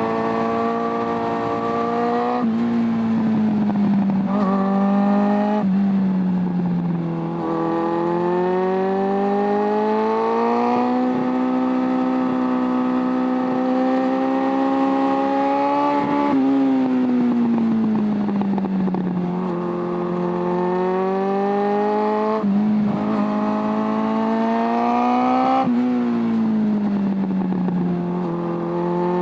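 Suzuki Bandit 600's carburetted four-cylinder engine pulling through the gears. The pitch climbs and drops sharply at upshifts about two and five seconds in, then rises slowly in a long steady pull. It falls off as the throttle closes, then climbs and shifts again.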